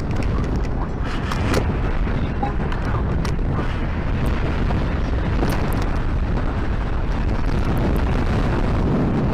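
Strong wind buffeting the microphone: a steady, loud rumble with a few faint crackles.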